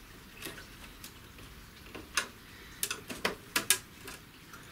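Small sharp clicks and taps of parts and a tool being handled while wires are connected to terminal blocks inside a portable stereo, about seven of them at irregular spacing, most bunched in the second half.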